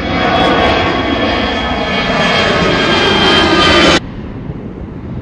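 Airbus A321-211's twin CFM56 turbofan engines at takeoff thrust, loud and building, with a dense whine of many steady tones. It cuts off suddenly about four seconds in, leaving a quieter rush of wind on the microphone.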